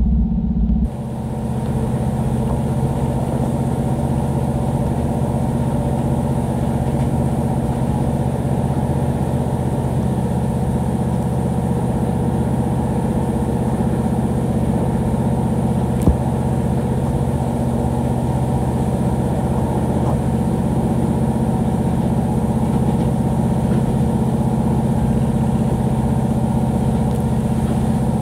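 A steady low hum from a running engine or motor, with one sharp click about halfway through.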